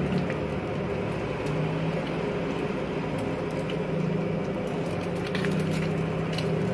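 Egg frying in hot oil in a steel wok, a continuous sizzle, with a few short clicks of a steel spatula against the wok in the second half.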